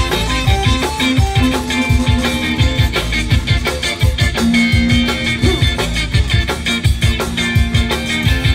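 Live zydeco band playing an instrumental passage: accordion holding and changing chords, a rubboard scraped in rhythm, a drum kit keeping a steady thumping beat, and guitar.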